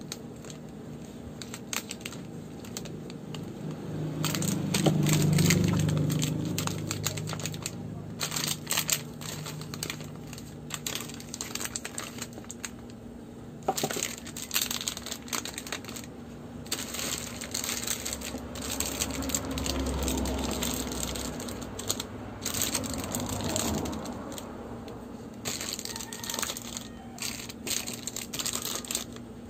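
Packs of plastic-wrapped bar soap being handled and set into a perforated plastic organizer tray: repeated small clicks, taps and wrapper crinkles. A low hum swells and fades around five seconds in.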